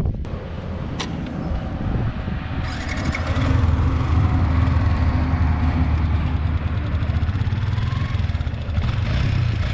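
Motorbike engine running, picking up and getting louder about two and a half seconds in, then held steady as the bike rides on sand with its screw-studded tyre, wind on the microphone. Two short clicks in the first second.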